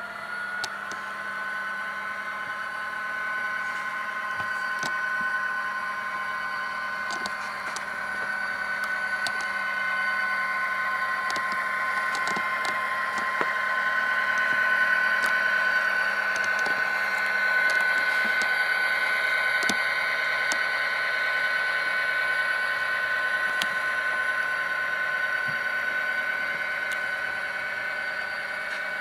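Soundtraxx Tsunami sound decoder in an HO-scale Athearn Genesis SD70 model locomotive, playing a diesel engine running through the model's small speaker: a thin, steady drone of stacked tones. It grows louder as the model comes closest about halfway through and eases off near the end, with scattered small clicks.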